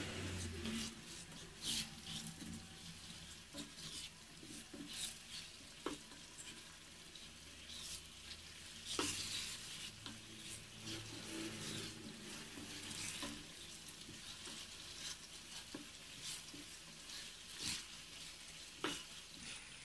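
Lamb and potato chunks with spices frying in a pot with a steady faint sizzle while a wooden spoon stirs them, giving short knocks and scrapes every few seconds.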